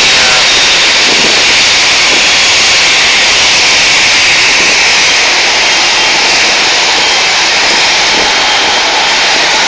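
Jet airliner engines: a loud, steady rush of noise with a faint whine near the start, easing slightly toward the end.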